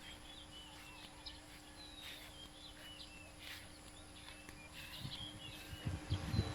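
Small birds chirping and twittering, many short high calls with quick rising and falling notes, over a faint steady hum. Near the end come low rumbling thumps.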